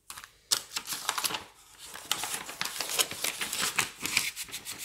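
Clear plastic sleeves of sticker and paper packets crinkling and rustling as they are handled and laid down, with a sharper tap about half a second in and a run of irregular quick crackles.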